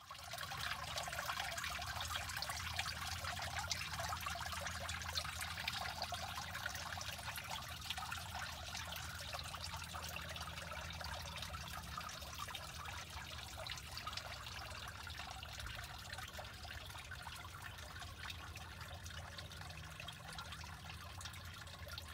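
Small backyard rock fountain: a shoot of water trickling and spilling over stones, steady throughout and growing slightly fainter toward the end.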